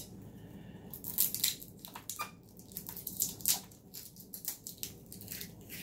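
Tacky packing-tape adhesive on the vacuum's rubber hose crackling and peeling as fingers handle it: an irregular run of small sharp crackles and clicks.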